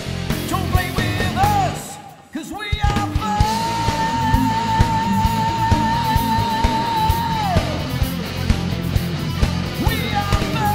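Heavy metal song with drums and distorted guitars and a rough lead vocal. The band drops out briefly about two seconds in, then comes back under a long high held note with vibrato.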